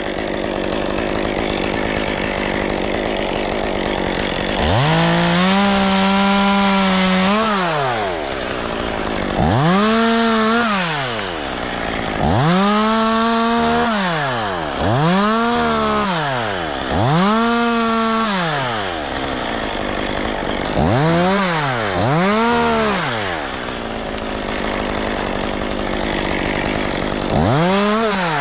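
Two-stroke chainsaw revved up to a high, held pitch and dropped back about eight times, each burst lasting one to three seconds, idling between. The saw has been cutting out on its own, which the crew put down to a needed service or spark plug.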